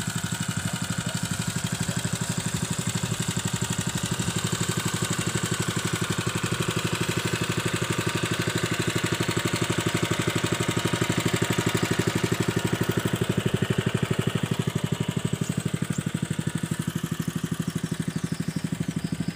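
Honda WB30XN water pump's single-cylinder four-stroke engine running steadily at working speed while pumping water.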